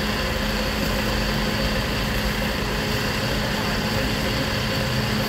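Grease-caked electric fan running at a steady speed beside a charcoal grill: a constant low hum over a rush of air.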